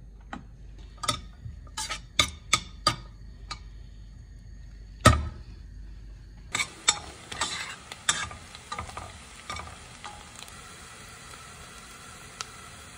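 A run of sharp clicks and knocks against a stainless steel pot, with one loud thump about five seconds in. From about six and a half seconds, diced onions sizzle in hot oil with a steady hiss and scattered clicks, which thin out toward the end.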